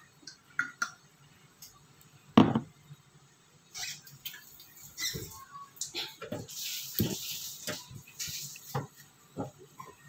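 Cooking at a non-stick frying pan of meatballs. A sharp knock about two and a half seconds in is the loudest sound. After it come scattered taps and clicks of utensils, and bursts of hissing sizzle as dark pepper sauce goes into the hot pan.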